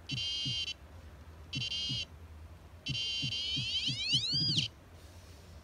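XP MI-4 pinpointer metal detector sounding its electronic alert tone in three bursts. The third is the longest, and its pitch sweeps up and back down near its end. The tone means the probe is detecting a small earring nut at about 3 cm.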